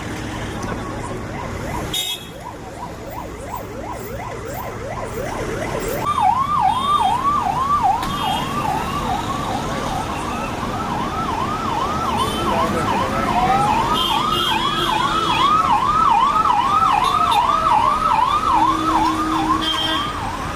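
Emergency vehicle siren in a fast yelp, sweeping up and down about twice a second. It grows louder about six seconds in. A second siren wails once, rising and then falling, midway through.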